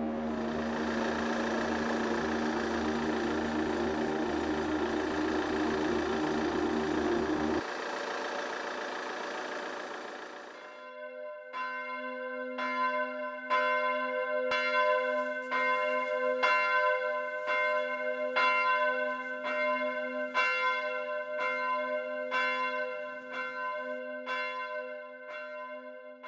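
A steady droning sound cuts off about eight seconds in. Then a church bell tolls slowly, about one strike a second, each strike ringing on under the next, and fades out at the end.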